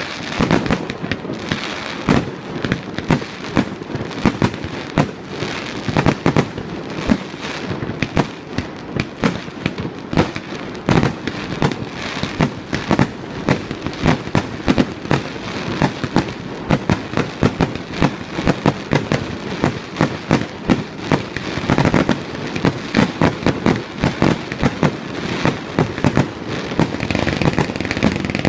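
Fireworks starmine barrage: shells bursting in rapid succession, several sharp bangs a second, each with a short rumbling echo.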